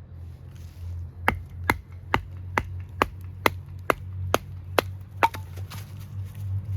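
A wooden baton striking the spine of a handmade 1095 high-carbon steel bushcraft knife, driving the blade through a knotty log: ten sharp, even strikes about two a second that stop about five seconds in, over a steady low hum.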